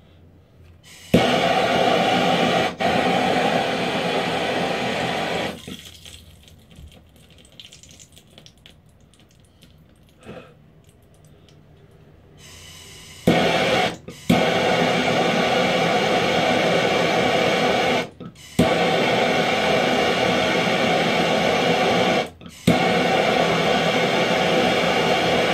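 Hand-held propane torch on a green cylinder running with a steady hissing roar as it heats a ladle of candle wax. It goes off for several seconds in the middle, then runs again with a few brief cut-outs, each restart starting with a sharp click.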